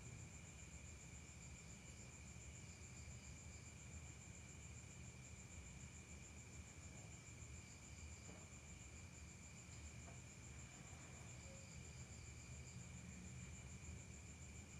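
Faint, steady trilling of crickets, with a low hum underneath.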